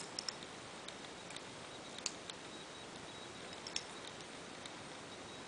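Plastic Lego bricks clicking as they are handled and pressed together: a few sharp clicks near the start, a pair about two seconds in and another near four seconds, over a steady hiss.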